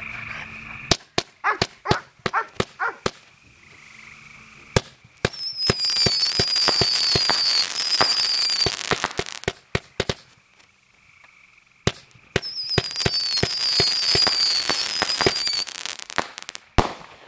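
Fireworks going off: a quick string of sharp bangs, then a long stretch of dense crackling with repeated high whistles that fall in pitch, a short pause, and a second crackling-and-whistling stretch. Two more bangs come near the end.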